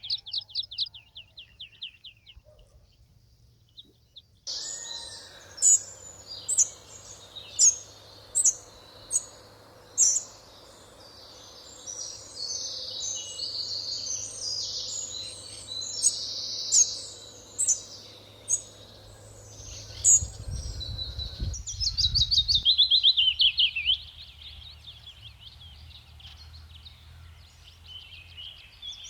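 Songbirds singing and calling, with sharp, high chirps repeated every second or so, then a fast trill of repeated notes a little past the middle.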